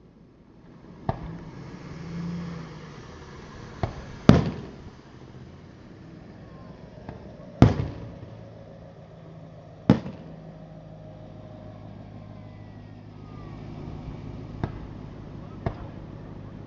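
Aerial fireworks shells bursting: about seven sharp booms a few seconds apart, the loudest about four seconds in, over a steady low hum.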